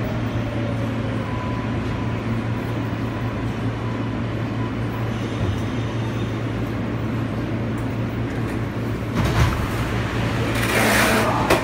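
Interior of an R143 subway car: a steady low hum from the car, with a faint whine in the first few seconds that fades out. About nine seconds in comes a short burst of noise, and near the end a louder hiss.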